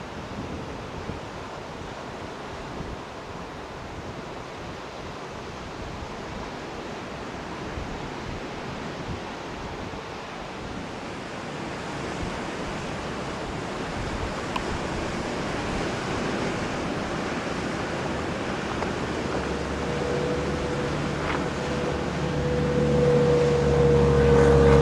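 Steady rushing wind noise on the microphone. From about three-quarters of the way in, the engine and propeller of a high-wing ultralight plane come in as a steady drone that grows louder as the plane passes close along the runway.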